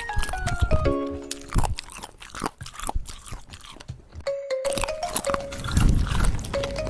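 Crunchy food being bitten and chewed close to the microphone, a rapid series of sharp crackles, over light background music with a simple plinking melody. The music and crunching break off briefly about four seconds in, then start again.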